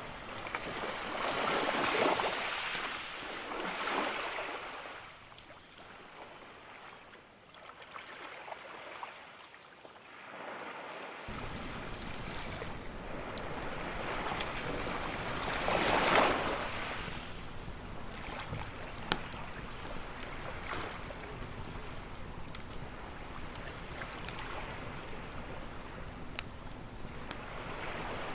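Ocean waves washing in on a beach, with a swell rising and falling every few seconds; a louder wave comes in about halfway through. A campfire crackles with scattered sharp pops, mostly in the second half.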